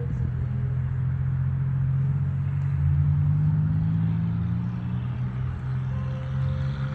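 Car engine and road noise heard from inside the cabin while driving slowly: a steady low hum that swells a little about three seconds in.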